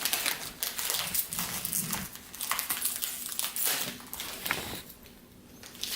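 Plastic packaging crinkling and rustling in irregular crackles and small taps as a toy's wrapped pieces are opened.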